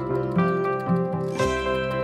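Background music of plucked string notes, played at a gentle, steady pace.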